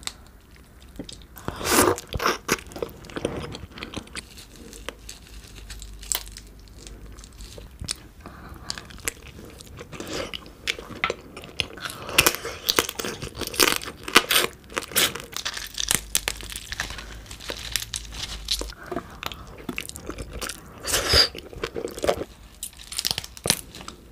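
Close-miked crunching and chewing of soy sauce marinated raw crab (ganjang gejang), the shell crackling between the teeth in irregular clusters.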